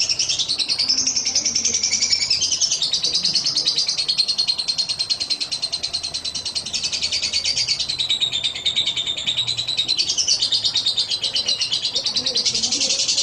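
Lovebird's long, unbroken 'ngekek' chatter: a rapid high rattle that wavers up and down in pitch without a pause.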